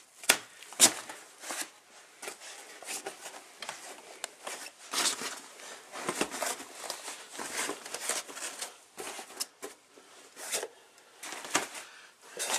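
Parts of a baby co-sleeper crib being handled and fitted back together: an irregular run of rustles, clicks and knocks, with two sharp knocks about half a second apart right at the start.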